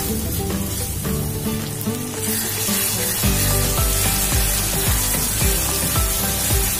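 Chopped tomatoes and onions sizzling in hot oil in a kadai as a wooden spatula stirs them, the tomatoes being sautéed until soft. Background music runs underneath and picks up a pulsing bass beat about three seconds in.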